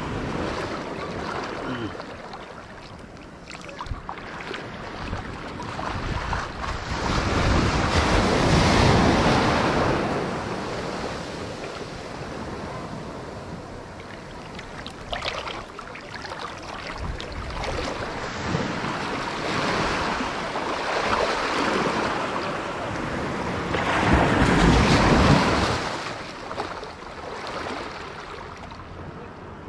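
Small shore-break waves washing and foaming over sand in shallow water, a steady rushing that swells loudest twice, about a quarter of the way in and again near the end, with wind on the microphone.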